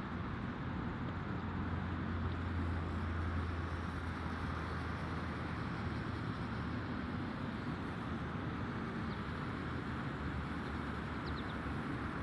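Steady outdoor rumble and hiss, heaviest in the low end during the first few seconds, with a few faint high chirps in the later seconds.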